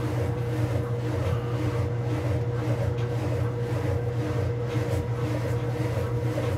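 Whirlpool Supreme belt-drive top-load washer spinning its basket: a steady low motor-and-belt hum with a couple of even tones above it.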